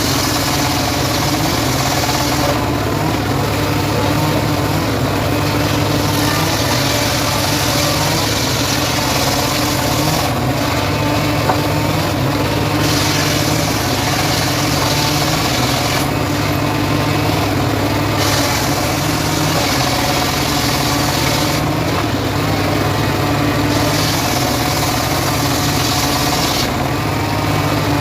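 Engine-driven homemade sawmill running steadily while sawing sengon wood. A higher hissing cutting sound comes in for stretches of several seconds and drops away for about two seconds between them, four times over, above the constant hum of the drive.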